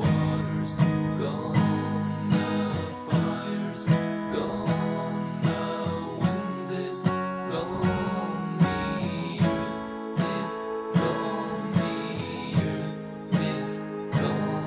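Background music: an acoustic guitar strummed on a steady beat, about one strum every 0.8 s, in an instrumental passage without singing.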